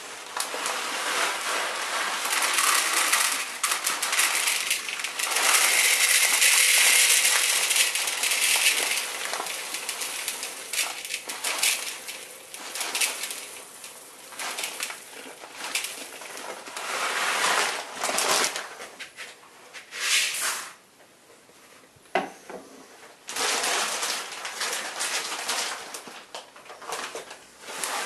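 Dry malted grain poured from a plastic bag into a plastic mixing bowl: a hissing rattle of kernels with crinkling of the bag. It comes in uneven bursts, with a short quieter break about three quarters of the way through.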